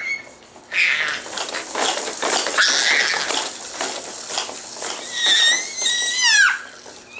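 A baby's long, high-pitched squeal that wavers and falls away near the end, after several seconds of noisy rattling from the baby's activity jumper.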